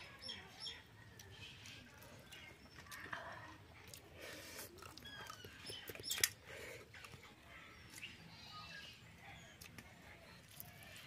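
Small birds chirping and trilling, with scattered light clicks and taps and one sharper click about six seconds in.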